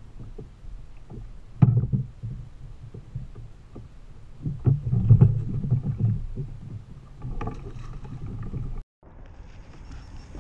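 Thumps and knocks on the hollow plastic hull of a sit-on-top kayak as a caught red drum is handled aboard, with a low rumble of water and wind underneath. The knocks come in two louder spells, about a second and a half in and around the five-second mark.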